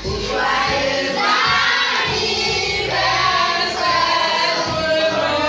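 A group of voices singing together, with children's voices among them.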